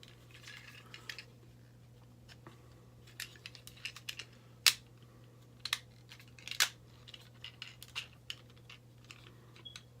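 Plastic clicks and snaps of a Transformers G1 Hot Rod action figure's parts being folded and pressed back into car mode, scattered small clicks with a few sharper snaps around the middle, over a low steady hum.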